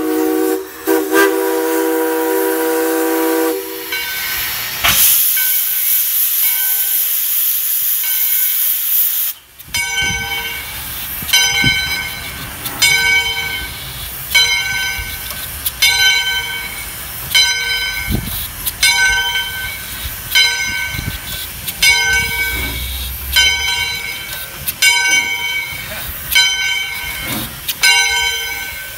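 Steam locomotive No. 40 blows its chime whistle for about three and a half seconds, then lets off a loud hiss of steam for several seconds. After that its bell rings steadily, about once every three-quarters of a second, over the low rumble of the engine moving slowly along.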